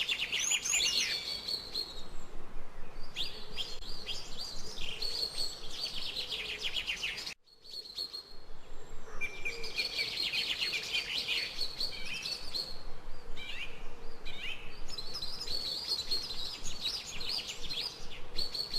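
Songbirds chirping and trilling in fast runs of high notes over a steady background hiss, with a brief break about seven seconds in before the song picks up again.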